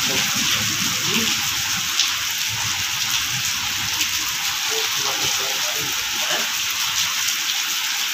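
Heavy rain falling onto tiled paving, a steady hiss of splashing drops.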